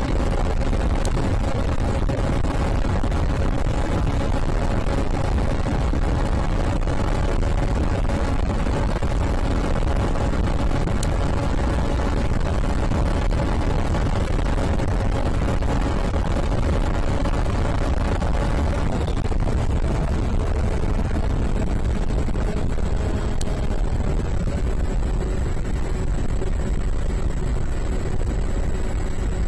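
Onboard sound of an FPV flying wing in flight: a steady rush of wind and airframe buffeting with the steady drone of its motor and propeller, the drone dropping slightly in pitch about 19 seconds in.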